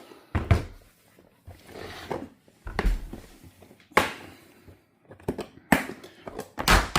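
Heavy breathing close to the microphone, in irregular puffs, mixed with knocks and handling noise from a handheld camera, including a sharp click about four seconds in.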